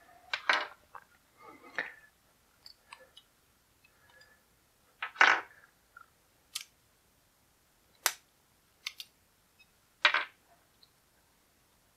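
Green plastic toy wheel hubs being snapped off a sprue (parts tree) and set down on a tabletop. There are a handful of short, sharp plastic clicks and snaps a second or more apart, the loudest about five seconds in.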